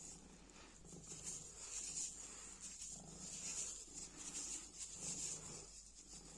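Black cat purring in a steady rhythm, the purr swelling about once a second with each breath.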